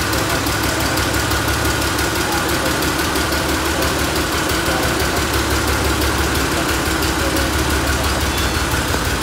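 Ghazi tractor's three-cylinder diesel engine idling steadily with an even firing beat. It is running after its scuffed pistons were refitted with new piston rings.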